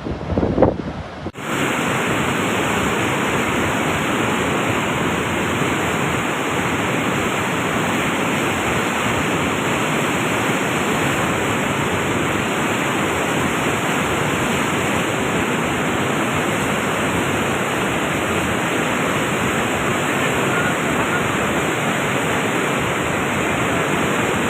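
Wind buffets the microphone for about the first second, then a steady, loud rush of Godavari floodwater takes over unbroken.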